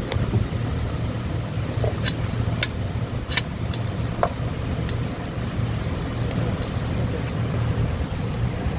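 Steady low hum of background machinery with a few light metallic clicks about two to four seconds in, from hand tools working on the shifter plate to reach the rear shifter bushing.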